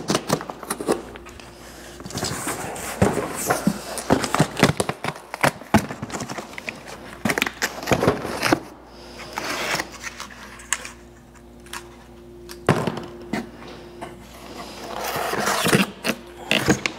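Cardboard packaging, glued and stapled shut, torn and pulled apart by hand in irregular rips, scrapes and crinkles. Near the end the new metal fan clutch is lifted out of its cardboard insert.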